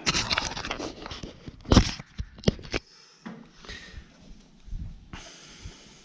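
Handling noises: a run of knocks and clicks, the loudest a sharp knock about two seconds in, followed by softer rustling and scraping.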